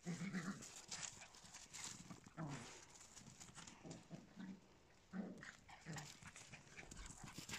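Small dogs making a series of short, low vocal sounds, mixed with light clicks and taps.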